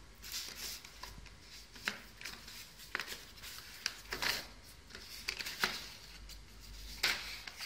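Cardboard retail box being opened by hand: the lid slides and rubs against the box, with scattered light taps and small knocks and a louder knock near the end.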